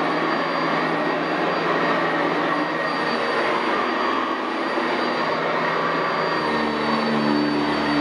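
Sanitaire SC679J commercial upright vacuum running steadily on carpet, with a high, even motor whine. About six seconds in, a lower hum joins. This is the change in sound that is listened for when setting the brush roll height: a change in the noise from the back end means the height is set right.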